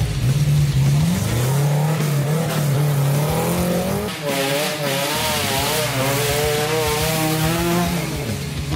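Off-road 4x4 engines revving hard under load, the pitch rising and falling repeatedly as the throttle is worked over rough, muddy ground.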